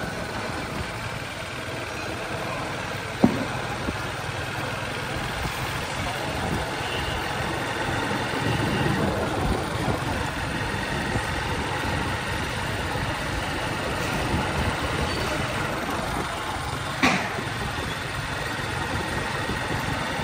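Motorcycle engine running steadily under way, with road and wind noise. Two short sharp bangs cut through it, one about three seconds in and a louder one a few seconds before the end.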